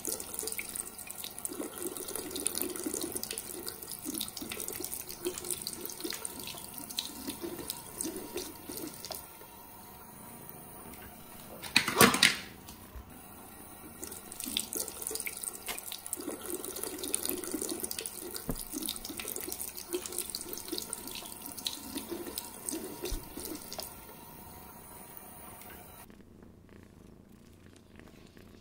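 Tap water running into a ceramic bathroom sink, splashing unevenly as a hand moves through the stream, with one brief loud burst about twelve seconds in. The running water cuts off near the end, leaving only a faint background.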